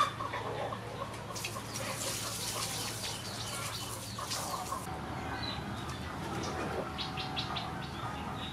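Outdoor birdsong: small birds chirping, with chickens calling close by and a short, loud call right at the start.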